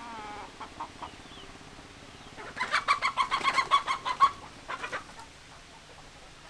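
Domestic hens clucking: a few scattered clucks, then a fast run of loud clucks starting about two and a half seconds in and lasting under two seconds, with a few more clucks just after.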